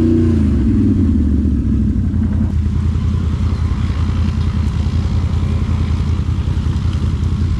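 Can-Am Renegade 1000 R ATV's V-twin engine, its revs dropping off in the first second. After that an ATV engine idles steadily with a low, even throb.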